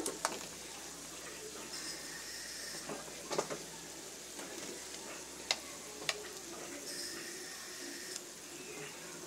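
Sliced hotdogs frying in hot oil in a wok: a steady sizzle, with a few sharp clicks along the way.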